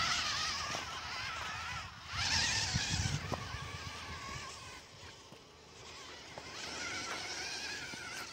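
Danchee Ridgerock RC rock crawler's electric motor and gearing whining as it climbs a rock slope, the pitch wavering with the throttle. A burst of rushing hiss and rumble about two seconds in is the loudest part. The whine fades around five seconds in and returns near the end.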